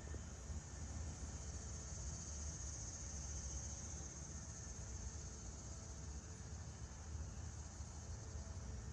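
Insects chirring steadily outdoors, an even high-pitched hum that does not let up, over a low rumble.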